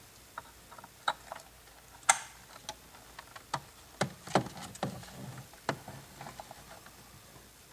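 Irregular plastic clicks and light knocks from handling the Saab 9-3 information display unit while hooking it up, the sharpest about two seconds and four seconds in.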